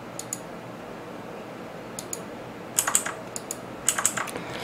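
Computer keyboard keystrokes: two taps at the start, then after a pause a quicker run of clicking keys through the second half.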